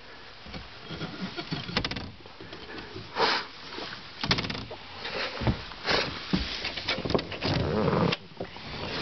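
Scattered knocks, clicks and rustles from storage-compartment lids and fittings being handled, with an opening or closing knock every second or so.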